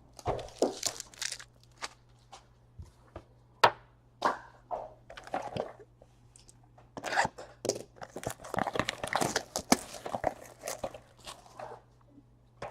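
A trading-card pack wrapper crinkling and tearing open, with the rustle and clicks of cards being handled, in irregular bursts that are busiest in the second half.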